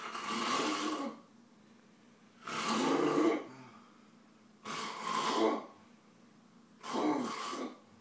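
Heavy snoring: four snores about two seconds apart, each lasting about a second.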